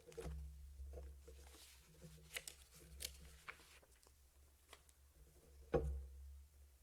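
Quiet room with a steady low hum and scattered faint clicks and rustles, then one louder knock near the end.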